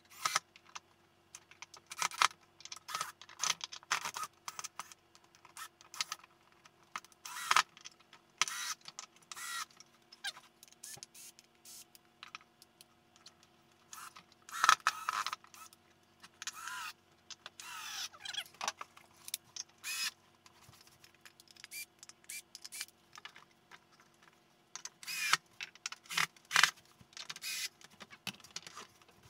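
DeWalt 20V cordless drill-driver running in short bursts as it drives screws into wooden boards, among clatter and knocks of boards and screws being handled.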